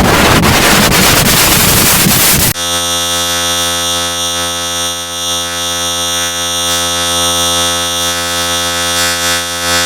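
A short voice clip mangled beyond recognition by digital audio effects. For about two and a half seconds it is harsh noise, then it switches abruptly to a loud, steady electronic drone of many tones stacked together, which cuts off near the end.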